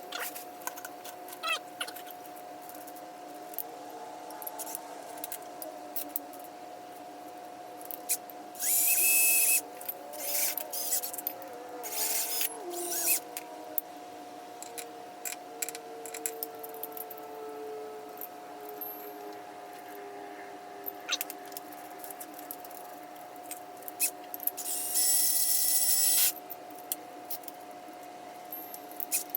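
Power drill with a small bit drilling holes in a small aluminum plate, running in short bursts. There are two longer runs, one about a third of the way in and one near the end, a few shorter ones between them, and clicks of handling, all over a steady faint hum.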